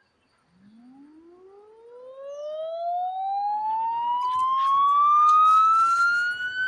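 A siren winding up: a single wailing tone that starts low about half a second in and rises steadily in pitch, growing louder as it climbs.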